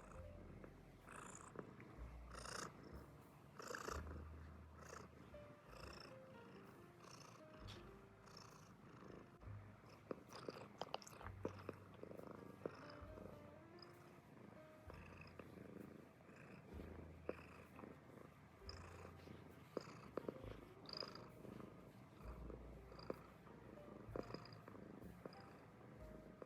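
American Shorthair cat purring, a low rumble that swells and fades with each breath, about one cycle every second or two.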